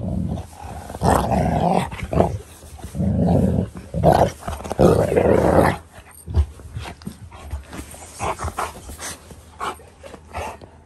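Newfoundland growling in play right against the microphone as it play-bites, in several loud bursts over the first six seconds. After that come quieter scuffles and rustles as its fur rubs against the phone.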